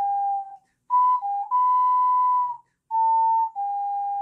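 Ocarina playing a short phrase of about six clear, pure notes with brief breaks, the longest held about a second. Some note ends sag slightly flat as the breath fades: the drooping note ending that the player says makes music sound gloomy.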